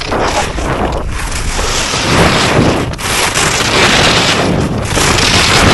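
Wind rushing over the microphone of a skier's body-worn camera, with Vector Glide giant-slalom race skis scraping and carving on hard-packed snow at speed. The noise is loud and swells and eases again and again as the skis turn through the gates.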